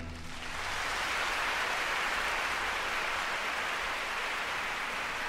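Audience applauding, swelling up within the first second and then holding steady, as the last orchestral chord dies away.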